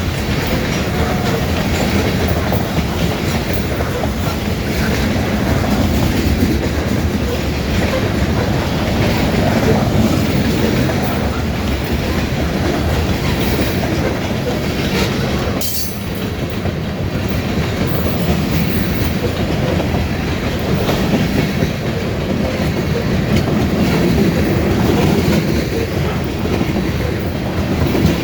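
Freight cars of a grain train rolling past close by, their wheels rattling and clicking steadily over the rails, with a brief dip about halfway through.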